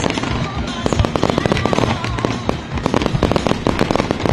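Aerial fireworks bursting in quick succession: a dense run of bangs and crackles, many per second.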